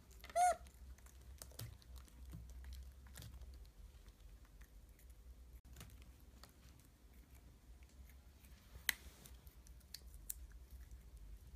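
Scattered small clicks and cracks of a baby macaque picking seeds out of a dried sunflower head and chewing them, with one sharper click near nine seconds in. A short high squeak about half a second in.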